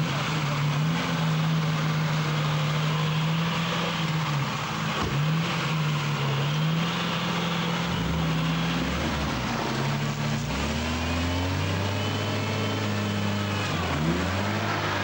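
Mercedes Unimog engine working under load during a rope recovery in deep mud, the revs held steady, dipping twice and climbing again. A second, deeper engine note joins about eight seconds in and holds steady, with the revs rising briefly near the end.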